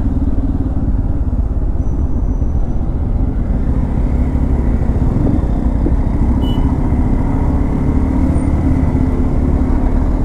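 Bajaj Pulsar N250's single-cylinder engine running steadily at low revs as the motorcycle creeps along in slow traffic.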